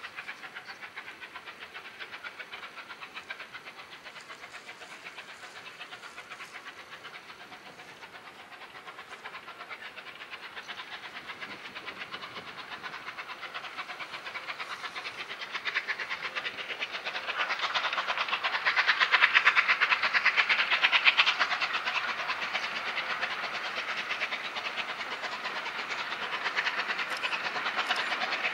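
Bulleid West Country class Pacific 34028 Eddystone passing under steam, its exhaust beating in a rapid, even rhythm. The beats grow louder as it approaches and are loudest about two-thirds of the way through.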